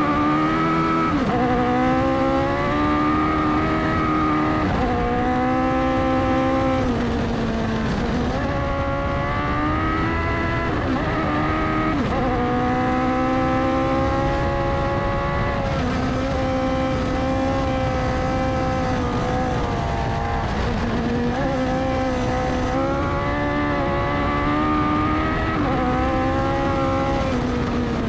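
Open-cockpit off-road buggy's engine under hard acceleration on a dirt hillclimb. Its pitch climbs, then drops sharply every few seconds as the driver shifts or lifts for bends, over steady road and wind noise.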